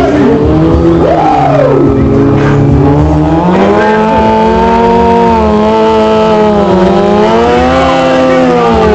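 Sportbike engine revved hard and held at high revs, its pitch swinging up and down with a quick rise and fall about a second in, as the rear tyre is spun in a stand-still burnout.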